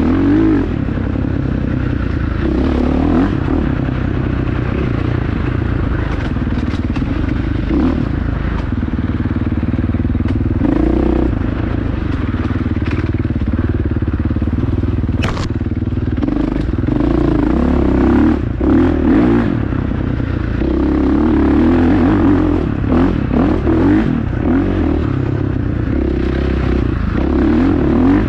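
Dirt bike engine running under way, its revs rising and falling, with the clatter of the bike over the rough trail and a sharp click about halfway through.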